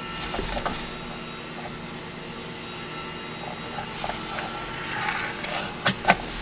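A pencil scratching on plywood and a steel ruler being handled and set against the board, with two sharp taps near the end.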